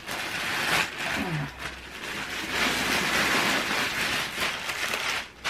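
Rustling of packing material being pulled from a parcel by hand: a steady, dense crackle of small rustles.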